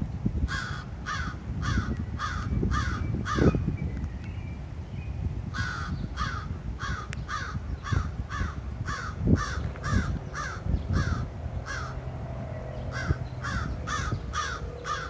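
American crows cawing in quick series of harsh caws, about two a second, each caw dropping slightly in pitch. The calling comes in three runs, with short breaks at about a third and at about four-fifths of the way through. A steady low rumble sits underneath.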